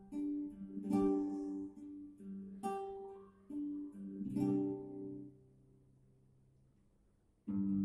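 Acoustic guitar playing slow plucked chords, each left to ring, one every second or two. The notes die away to near quiet for about two seconds before a louder chord comes in near the end.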